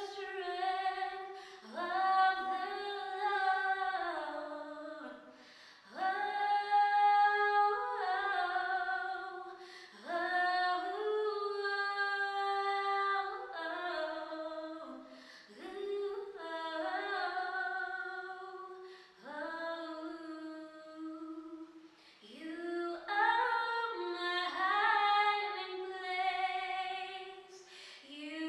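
A woman singing solo without accompaniment, in long held phrases of a few seconds with short breaks for breath between them.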